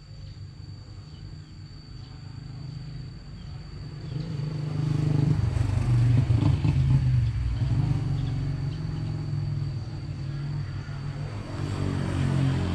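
A motor vehicle's engine passes close by. It grows louder about a third of the way in, peaks around the middle with its pitch bending, eases off, then swells again near the end. A thin, steady high-pitched tone runs underneath.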